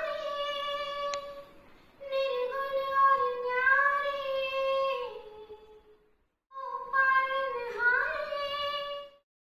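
A woman singing alone without accompaniment: three long held phrases with sliding pitch turns, separated by short breaths, the last ending just before the end.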